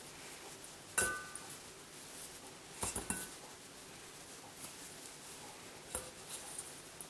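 Hands dividing sticky rice-flour dough in a stainless steel bowl, knocking against the bowl now and then: a sharp clink with a brief ring about a second in, a few more clinks near three seconds, and one near six seconds.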